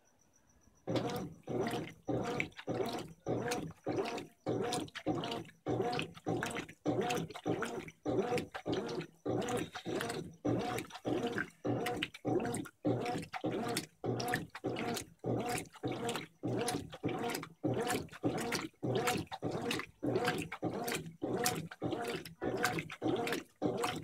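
Brastemp 15 kg top-load washing machine agitating: after about a second of quiet the agitator starts, churning the clothes and water in a steady rhythm of about two sloshing strokes a second.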